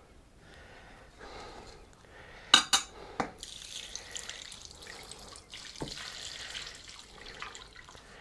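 Soapy water poured from a plastic jug into a plastic washing-up bowl, a steady splashing pour that starts a little over three seconds in. Just before the pour, two sharp knocks.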